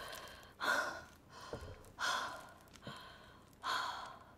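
A woman breathing heavily through her open mouth while eating: three loud breaths about a second and a half apart, each trailing off.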